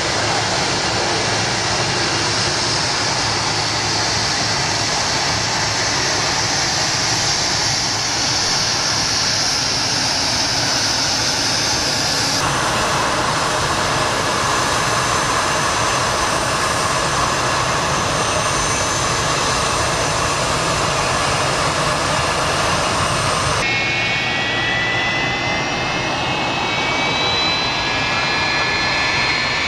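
McDonnell Douglas MD-82's rear-mounted Pratt & Whitney JT8D turbofans running with a steady jet rumble and hiss. In the last few seconds several whining tones rise together as the engines spool up for take-off.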